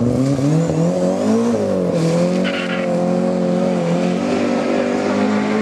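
Ford Escort Mk2 rally car's engine revving hard as the car accelerates away. The pitch climbs over the first second and a half, drops briefly at a gear change, then holds a steady high note.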